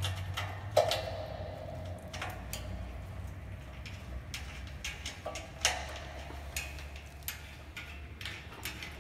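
Scattered small metal clicks and taps as a screwdriver turns screws to mount a sensor bracket on a metal plotter stand, with a few louder knocks, one about a second in and another between five and six seconds. A low steady hum runs underneath.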